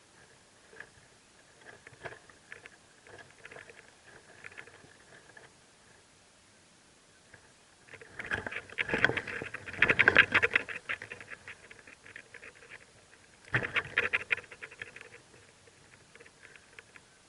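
Mockingbird nestlings begging with rapid chirping in two loud bouts, the first about eight seconds in and the second near the end, with softer chirps and stirring in the nest before them.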